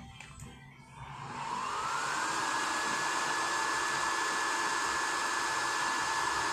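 Electric blower fan of a waste-oil burner stove switched on about a second in. Its motor whine rises in pitch as it spins up, then runs steadily over a rush of air.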